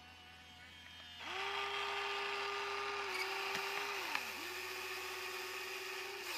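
Electric motors of a radio-controlled toy excavator whining as it works its boom and arm. The whine is faint for about the first second, then steady and high, sagging in pitch briefly a couple of times near the middle, and it stops just before the end.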